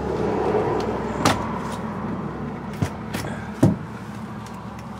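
Sharp clicks and knocks of a lock cylinder and its parts being handled during rekeying, four in all, over a steady low hum.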